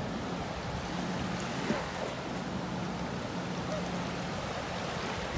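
Small ocean waves washing onto a sandy shoreline, a steady rushing wash, with a faint low hum underneath.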